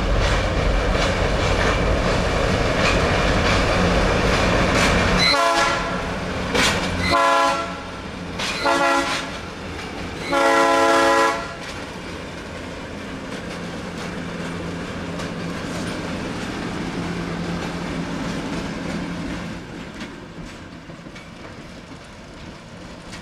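Oil Creek & Titusville Railroad diesel locomotive rumbling past close by with a gondola car in tow. It sounds its horn four times, the last blast the longest, as it nears a railroad crossing. Then the engine and rolling cars fade as the train moves away.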